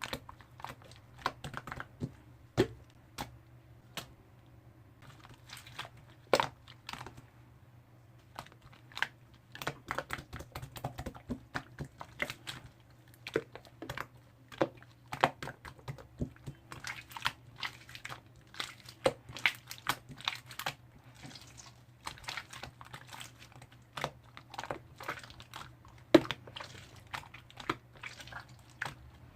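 Slime squished and pressed by hand, making many irregular sticky clicks and pops.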